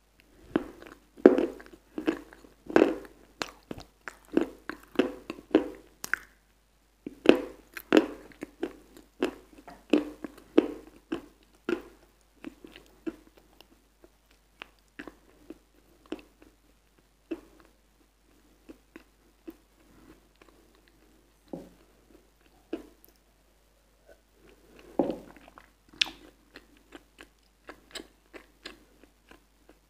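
Close-up mouth sounds of eating a soft creamy dessert off a spoon: wet smacking and chewing clicks. They come thick and fast for the first dozen seconds, thin out to scattered smacks through the middle, and pick up again near the end.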